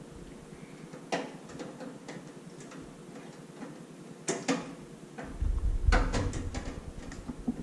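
Scattered light metallic clicks and knocks as hands handle a microwave oven's sheet-metal bottom panel, with a dull low bump and rumble of the unit being moved or pressed about five seconds in.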